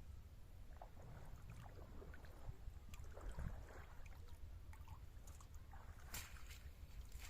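Faint, irregular splashing and sloshing of water, with a sharper knock about six seconds in, over a steady low rumble.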